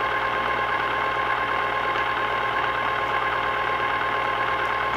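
Tabletop chocolate-style fountain running with cheese sauce: its electric motor hums steadily with a clear whining tone.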